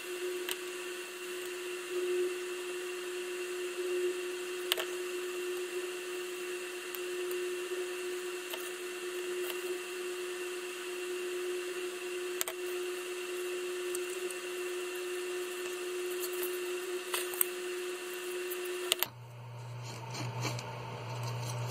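A steady hum runs under a few light clicks and taps of small plastic parts being handled on a cutting mat. The hum cuts off suddenly near the end, and a lower hum takes its place.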